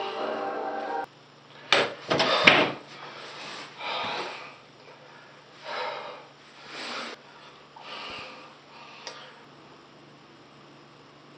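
Background music cuts off about a second in. A man then gives a loud sudden gasp, as if waking from a nightmare, and follows it with several heavy breaths about a second apart that grow fainter.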